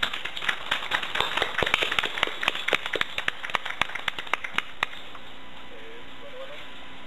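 Polite applause from a small group: a patter of hand claps that thins out and stops about five seconds in.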